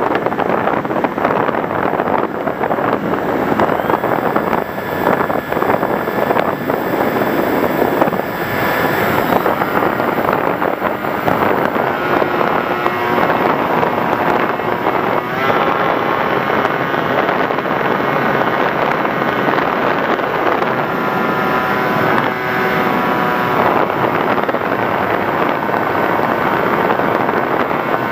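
Wind rushing over the microphone of a model plane in flight, with a faint motor whine whose pitch shifts as the throttle changes, clearest in the middle.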